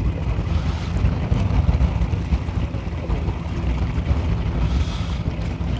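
Wind buffeting the microphone on a boat at sea, a steady low rumble.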